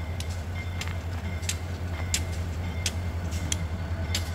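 CSX 8395 diesel locomotive running at low throttle as it rolls slowly through the yard, a steady low engine rumble. Sharp clicks come every half second or so over it.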